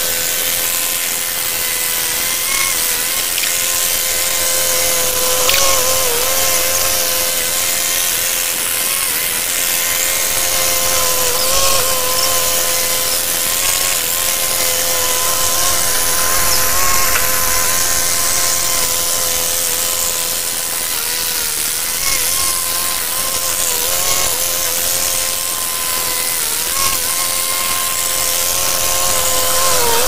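Old diesel crawler bulldozer running steadily as it pushes snow, a constant mechanical whine over engine noise. The pitch sags briefly several times, about every few seconds.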